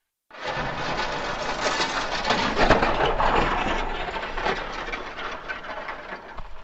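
A recording of glass shattering, slowed down and pitched down into a long, dense crackling rumble that starts suddenly. Nothing is left above about 8 kHz, the high end lost by slowing the sample down.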